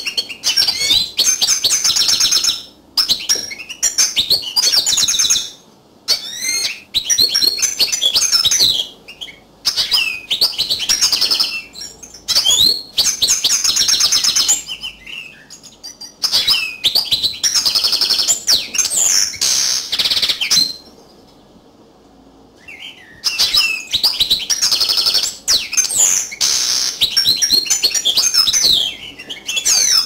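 European goldfinch singing: fast runs of high chirps and trills in bursts of a few seconds, broken by short pauses, with a pause of about two seconds some two-thirds of the way through.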